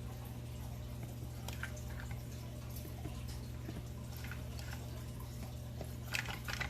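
Faint clicks and small wet squishes of acrylic latex caulk being squeezed from a tube, with a denser run of clicks near the end, over a steady low electrical hum.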